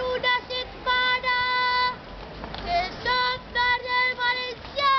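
A boy singing a festival proclamation solo, reading it from a scroll, in short phrases with a long held note about a second in and another near the end.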